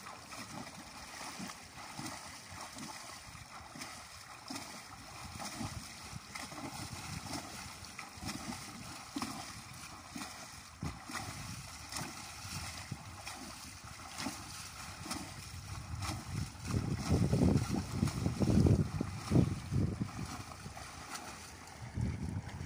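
A horse pawing at shallow river water with a front hoof, splashing again and again, over the steady wash of the river. A few seconds past the middle there is a louder low rumble lasting about three seconds.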